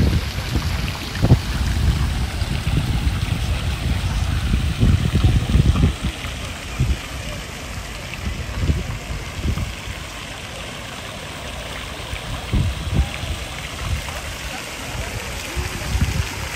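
Fountain jets splashing into the pool, a steady rushing spray, louder for the first six seconds or so and then softer. A few short low thumps come through now and then.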